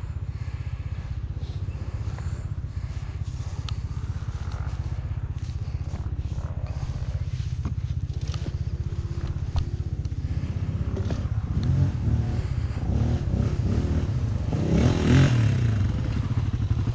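Dirt bike engine idling steadily, with a second dirt bike approaching from about eleven seconds in, its engine revving up and down and loudest near the end.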